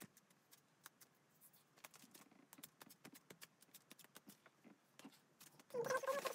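Faint crinkling, tapping and rubbing of a wax strip being handled and smoothed onto the skin of a leg. Near the end a short wordless vocal sound from the person comes in.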